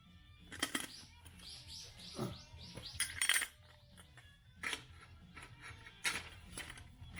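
Sharp metal clinks of an exhaust inner silencer and muffler being handled and fitted, with a quick run of short squeaky scrapes between about one and three seconds in.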